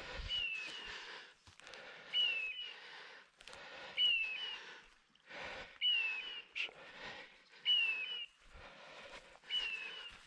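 A dog's electronic beeper collar sounding a short falling whistle-like call, each with a brief second note, six times at an even pace of about one every two seconds. A burst of rustling through brush comes with each call.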